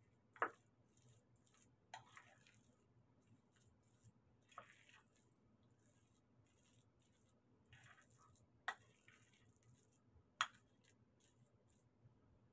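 Metal spoon mashing a soft food mixture in a ceramic plate: faint squishing and scraping, with about five sharp clinks of metal on the plate, the loudest one about half a second in and two more in the second half.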